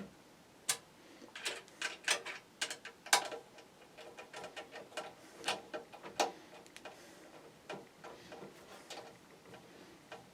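Irregular clicking and scraping of a screwdriver driving the power supply's mounting screws into a metal PC case, a few sharp clicks a second.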